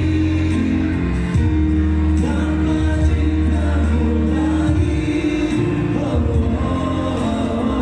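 A woman and a man singing a duet into handheld microphones over amplified backing music.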